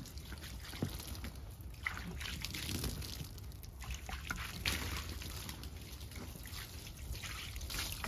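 Water pouring from a plastic jug and trickling and splashing over freshly sawn ash boards, wetting the wood.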